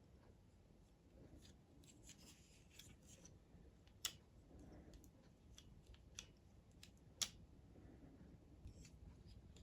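Faint handling noise of small parts and tools: scattered light clicks and taps, with two sharper clicks about four and seven seconds in.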